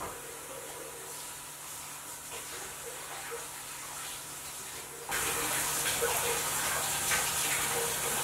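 Soft scraping of a silicone spatula stirring thick cake batter in a mixing bowl. About five seconds in, a steady rushing hiss comes in abruptly and becomes the loudest sound.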